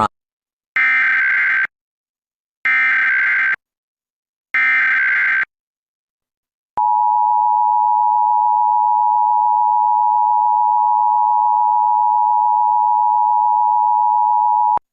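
Emergency Alert System alert: three short bursts of SAME header data, each under a second, about two seconds apart, then the EAS two-tone attention signal held steady for about eight seconds.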